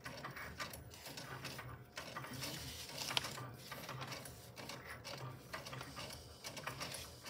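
Cricut cutting machine drawing with a pen: its motors run in short stop-start moves, with a low pulsing hum and small mechanical clicks. Card stock cards rustle and tap as they are handled.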